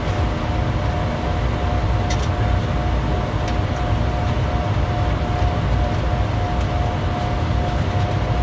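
Steady flight-deck noise of a Bombardier Challenger 350 jet descending on approach: a constant rumble of airflow and engines with a steady hum tone. A couple of faint clicks come about two and three and a half seconds in.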